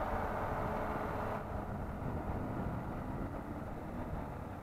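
Honda motorcycle engine running at a steady cruise, with wind rushing over the microphone; the rushing eases about a second and a half in.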